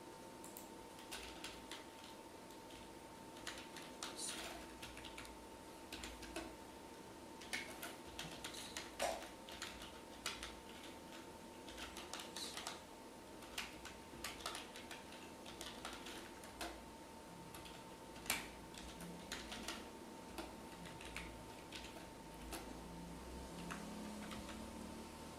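Computer keyboard typing: faint, irregular keystroke clicks in short runs and single taps, over a faint steady hum.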